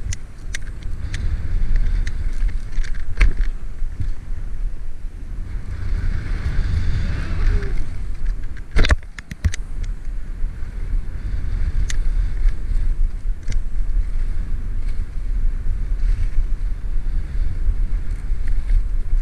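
Skiing downhill: a steady rumble of wind buffeting the camera's microphone over the hiss and scrape of skis on snow, with a few sharp knocks, the loudest about nine seconds in.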